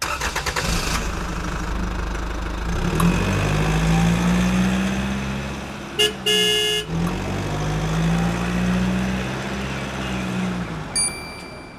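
A toy truck's small DC gear motor running as it drives along concrete: a low steady hum that swells and fades. A horn toots for about a second around the middle, and a short high ring sounds near the end.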